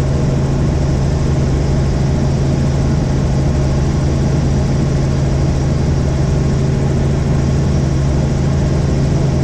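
Helicopter in flight: steady, loud engine and rotor noise with a strong low hum.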